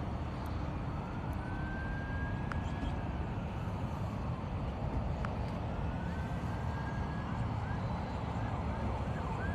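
Distant siren wailing, rising slowly and falling twice, then switching to quick repeated yelps near the end, heard faintly over a steady low rumble.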